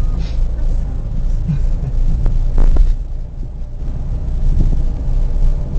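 Car cabin rumble: the steady low drone of the engine and tyres of a car driving on a wet road, heard from inside the car.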